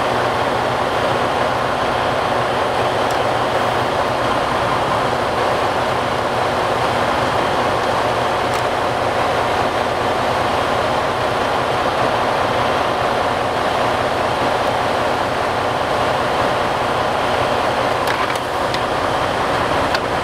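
Heavy-duty truck's diesel engine idling steadily in neutral, heard from inside the cab.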